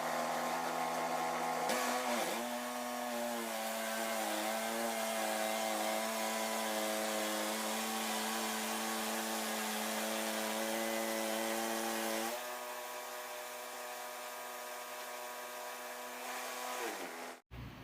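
Wood-Mizer LT10 bandsaw mill running steadily while sawing a black walnut log. Its pitch wavers briefly a couple of seconds in, and it gets quieter about twelve seconds in. Near the end the pitch falls and the sound stops abruptly.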